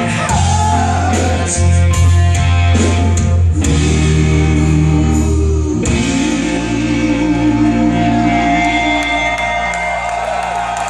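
Live rock band with electric guitars, bass guitar, drums and a singer, heard from the audience in a large hall. About six seconds in the heavy bass cuts out on a final hit, and the closing chord rings on as the song ends.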